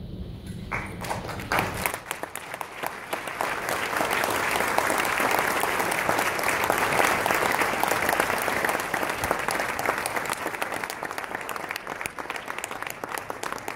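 Audience applauding: many hands clapping. The clapping starts about a second in, swells, then slowly thins out.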